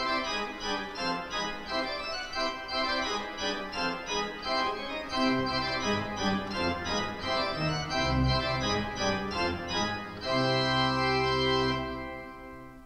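Rochester Cathedral pipe organ playing a moving passage on foundation stops with a mixture drawn, which adds bright high ranks that sparkle on top of the notes. Low bass notes come in about halfway, and it ends on a held chord that dies away in the building's echo near the end.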